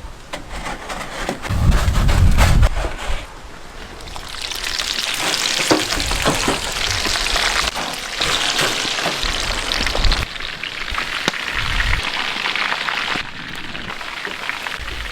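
Hot oil sizzling steadily as coated chicken pieces fry, with a few low thuds and knocks near the start.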